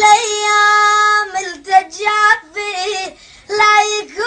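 A child singing an Iraqi Arabic song solo, with no accompaniment: one long held note at the start, then a run of short phrases with wavering, ornamented pitch.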